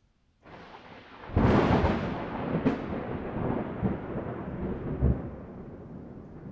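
Thunder during heavy rain: after a near-silent gap, rain noise comes in about half a second in, then a sudden loud thunderclap about a second later rolls on with several deeper booms and slowly fades.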